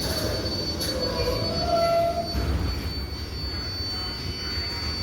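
R188 subway train rumbling along the rails as it slows to a stop, with a brief wheel squeal about two seconds in.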